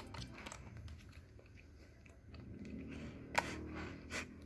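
Faint handling noise with a few light clicks, the sharpest about three and a half seconds in, over a low steady hum.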